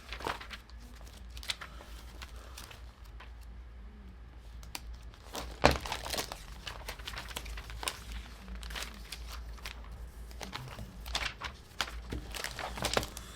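Plastic bags of LEGO pieces crinkling and rustling as they are handled, with a sharper crackle about six seconds in.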